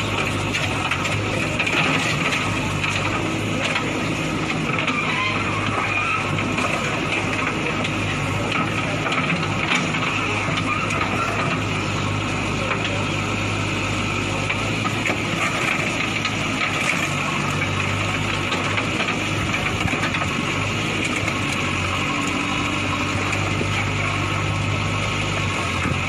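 JCB backhoe loader's diesel engine running steadily under load as its arm crushes an SUV, with scattered short crunches and knocks of metal.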